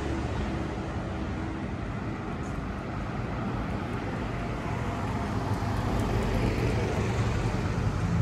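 Steady street traffic noise: a continuous rumble and hiss of passing cars, growing a little louder in the second half.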